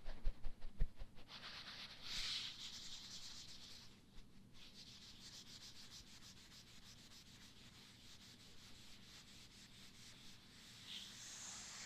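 Powder puff rubbed close to the microphone as an ASMR trigger. A quick series of pats and soft thumps comes in the first second or so, then settles into steady, soft brushing.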